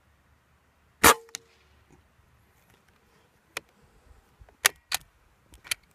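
A .25 calibre Benjamin Marauder PCP air rifle fires once, a sharp report with a brief ring, followed by a smaller click. Then come several crisp metallic clicks as the bolt is worked back and forward to chamber the next pellet.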